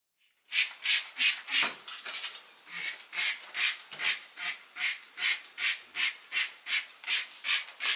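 A trigger spray bottle being squeezed over and over, about two or three sprays a second, each a short hiss.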